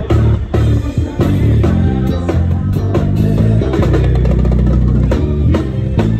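Band music with guitar, bass guitar and a drum kit keeping a steady beat.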